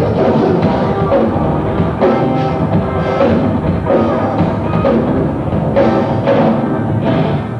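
Live rock band playing loud: electric guitar and a drum kit hit hard, with the music dipping briefly near the end.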